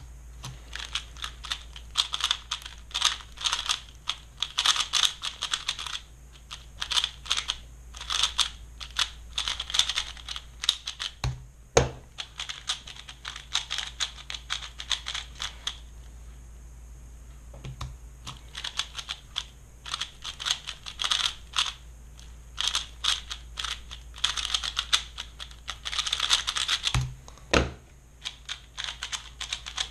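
Stickerless Valk 3 speedcube being turned quickly: rapid runs of small plastic clicks in bursts, broken by short pauses and a few soft knocks. The cube is freshly lubed, and its owner puts its slight slowness down to the lube not being broken in yet.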